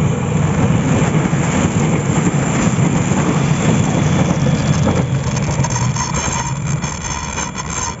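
KA Bandara YIA airport train, a diesel multiple unit, running past at close range with a steady rumble of engine and wheels on the rails. It eases after about five seconds and fades near the end as the train moves away.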